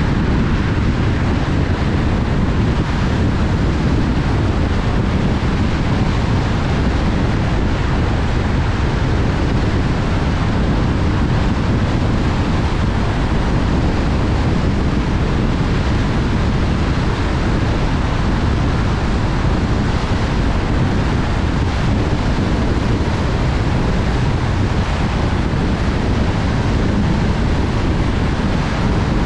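Steady road noise of a car at highway speed on wet pavement: tyre hiss and wind noise with a heavy low rumble, unchanging throughout.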